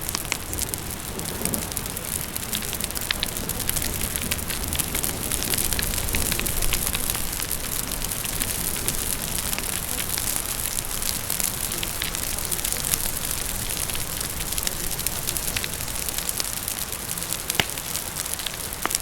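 Steady rain with a wood fire crackling, its small sharp pops scattered throughout and one louder pop near the end.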